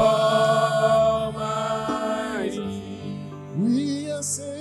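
Gospel worship choir with instrumental backing. The singers hold a long note at the end of a sung line, which breaks off about two and a half seconds in, leaving the steady instrumental backing. A single voice then slides up into a new phrase near the end.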